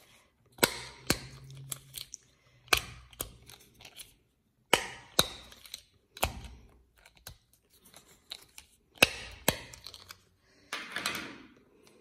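Silicone bubbles of an original Fat Brain Toys Simpl Dimpl fidget toy pushed through with a thumb, popping with crisp clicks, mostly in pairs about half a second apart. A short rustle near the end.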